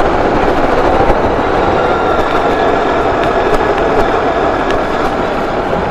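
Motorcycle engine running while riding at low speed, with a steady rush of road and wind noise on a helmet-mounted microphone; it eases off slightly near the end.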